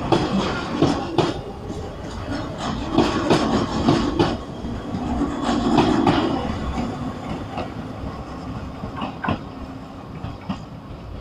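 Izuhakone Railway 3000 series electric train rolling out, its wheels clattering over rail joints and points in quick clicks. The sound is loudest in the first half and dies away toward the end.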